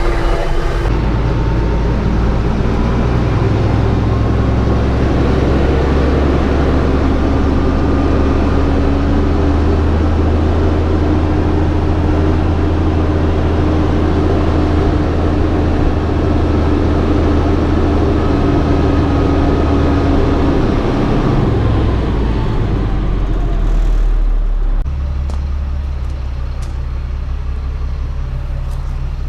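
Pickup truck driving on the road: steady low engine and road rumble. Near the end the engine note falls and the noise eases a step.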